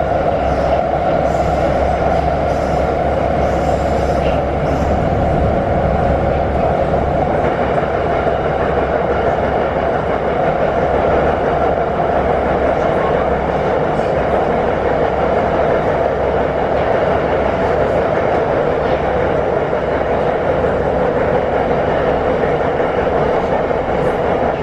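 Wagonmash series 81 (81-572.2/81-573.2) metro car running at speed through a tunnel, heard from inside the passenger car: a steady loud roar of wheels on rails and running gear, with a strong mid-pitched drone.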